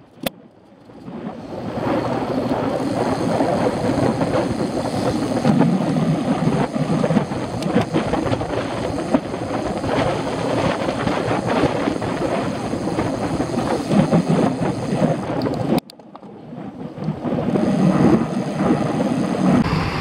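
Wind and riding noise on the microphone of a bike-mounted action camera as a bicycle rolls along a wet road in the rain: a steady, fluctuating rush. It cuts off abruptly about sixteen seconds in and builds up again.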